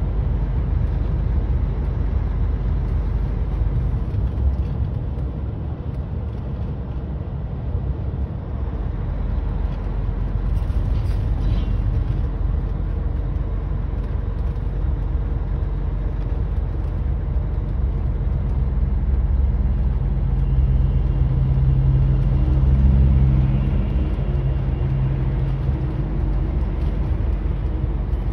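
Steady engine and road noise heard from inside a truck cab at freeway speed. About twenty seconds in, a deeper engine drone swells for a few seconds, then eases.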